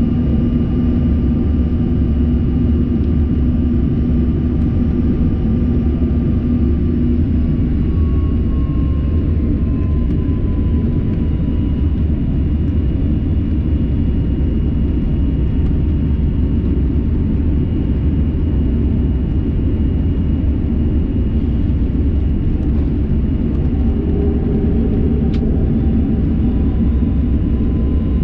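Turbofan jet engines of a high-wing regional jet running at low thrust, heard inside the passenger cabin while taxiing: a steady rumble with a thin engine whine that dips lower about eight seconds in.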